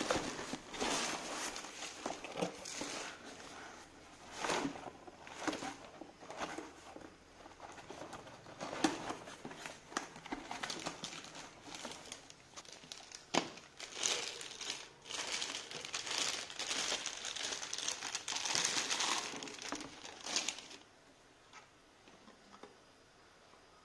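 Cardboard box and plastic wrapping rustling and crinkling irregularly as packed parts are handled and pulled out, with a few sharp knocks. The rustling stops about three seconds before the end.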